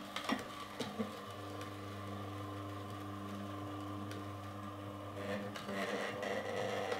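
Solo Star 4 horizontal slow juicer running, its auger crushing carrot pieces pushed down the feed chute with the plunger: a low steady hum with a few clicks and crunches.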